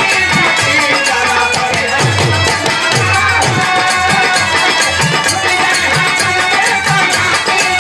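Bhojpuri biraha folk music: a dholak drum beats a steady rhythm under the sustained, reedy chords of a harmonium.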